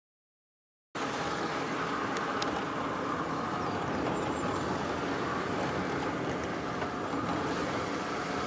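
Silence for about a second, then the steady road and engine noise of a car driving, heard from inside the cabin.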